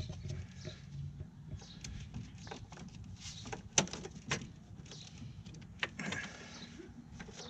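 Rubber air intake tube being pulled and twisted loose from a K&N air filter assembly by hand: scattered knocks, clicks and rubbing of rubber and plastic, the sharpest snap a little under four seconds in.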